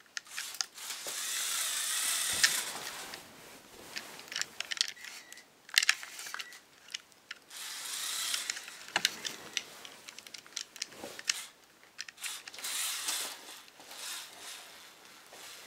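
Lego Technic RC truck's small electric drive motors whirring in short runs of a second or two, with scattered clicks and knocks between runs.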